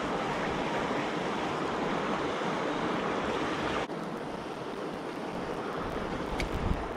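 Steady rush of flowing river water, dropping a little in level suddenly about four seconds in, with a faint click and a low thump near the end.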